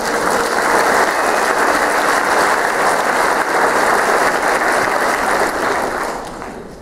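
Audience applauding, dense and steady, dying away about six seconds in.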